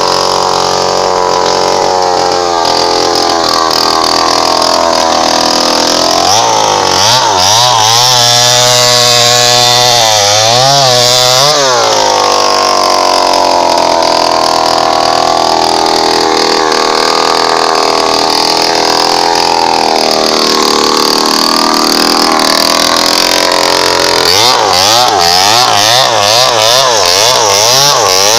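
Two-stroke Falcon chainsaw running at high revs while cutting a felled teak log. Its engine pitch wobbles rapidly up and down from about six seconds in and again near the end, and holds steadier in between.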